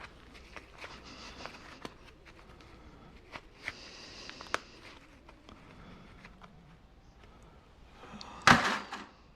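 Handling noise from stripping copper wire with a Stripmaster wire stripper: scattered clicks and short scrapes of wire and tool, with one much louder clatter about eight and a half seconds in.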